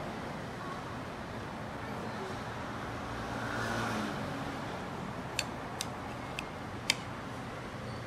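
Steady background noise, traffic-like, swelling briefly about halfway through, with four sharp clinks in the second half, the last one the loudest.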